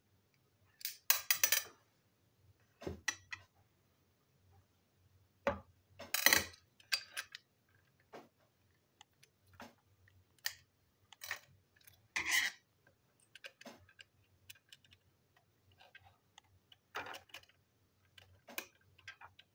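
A plastic toy locomotive being taken apart by hand with a small screwdriver: irregular clicks, taps and short scraping rustles of plastic parts and small screws being handled.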